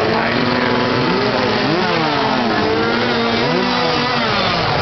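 Several gasoline chainsaws revving at once, their engine notes rising and falling and crossing over one another without a break.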